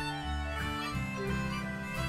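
Instrumental background music: a melody over low bass notes.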